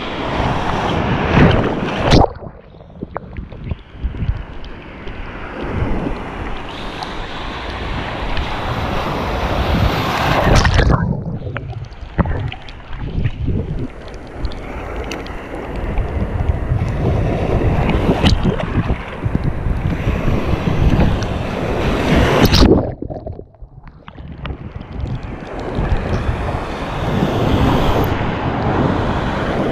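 Ocean surf breaking and water sloshing close around a camera held at water level, with wind on the microphone. Twice the sound briefly turns dull and muffled as water washes over the microphone.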